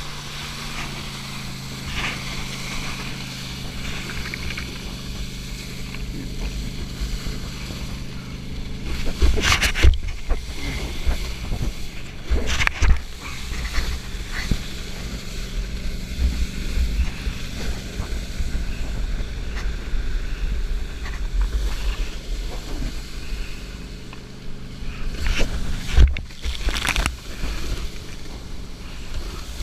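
Water rushing and spraying under a wakeskate board, with wind buffeting the camera microphone and the steady drone of the towboat's engine underneath. Loud splashes and knocks stand out about nine to ten seconds in, again around twelve to thirteen seconds, and twice near the end, as the board crosses the wake and lands.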